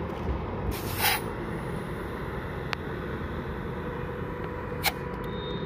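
Air hissing as an air-line chuck is pressed onto a car tyre's valve during inflation, over a steady low rumble. There is a short burst of hiss about a second in and a shorter one near the end.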